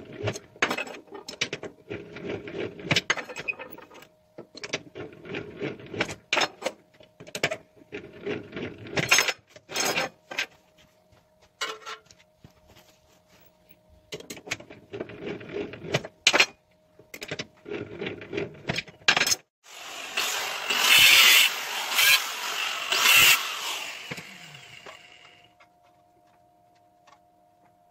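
Steel strip being worked through a small bench-top ring roller: irregular metallic clicks and clanks as the strip and rollers are handled. Near the end comes a few seconds of louder rushing, scraping noise, then it goes quiet.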